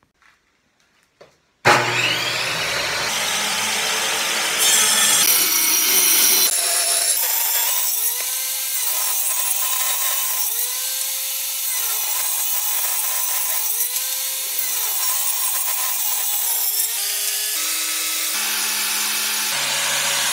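Table saw running and ripping maple boards into half-inch strips. It starts suddenly about two seconds in, after a near-silent moment.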